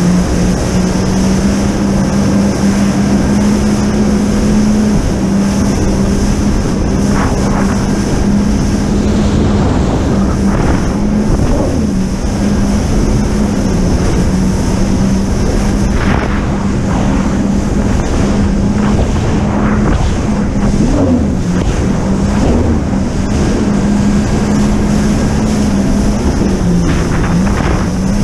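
Jet ski engine running at a steady pitch that dips briefly a few times, with wind buffeting the microphone and water splashing.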